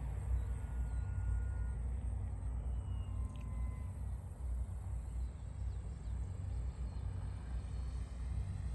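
Steady low wind rumble on the microphone, with the faint whine of a radio-controlled Corsair model airplane's motor and propeller overhead, rising in pitch and growing near the end as the plane comes closer.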